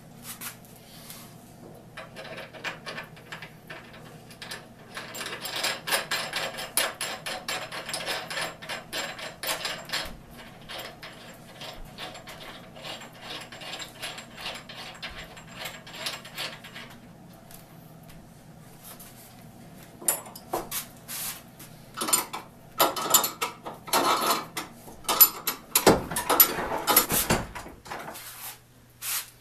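Ratchet wrench clicking rapidly in long runs of strokes, turning a bolt, with a louder, denser stretch of clicks and knocks near the end.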